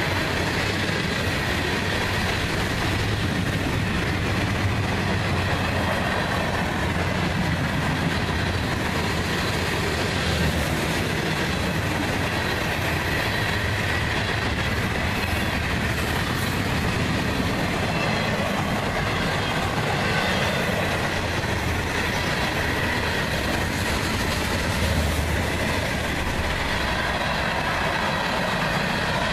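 A CSX manifest freight train's cars rolling past close by: steel wheels running on the rails make a steady, loud noise throughout.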